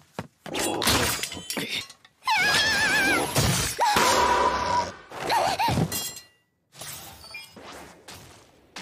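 Anime fight sound effects: sharp breaking and impact hits mixed with a girl's wordless cries and straining, in several loud bursts. It turns much quieter in the last couple of seconds.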